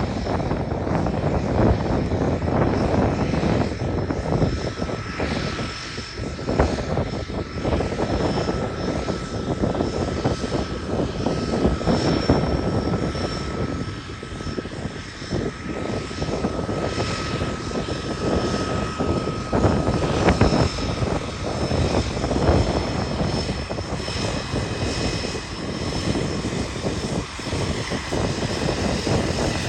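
A de Havilland DHC-3 Otter floatplane's engine and propeller running steadily on the water as it taxis ahead of takeoff.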